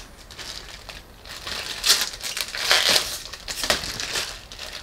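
Clear plastic protective wrap being peeled off a new tail light, crinkling and crackling in irregular bursts that are loudest about two and three seconds in.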